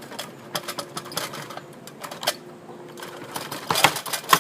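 Irregular clicking and clattering of hard plastic and metal parts being handled as an induction cooker is taken apart, with two sharper knocks near the end.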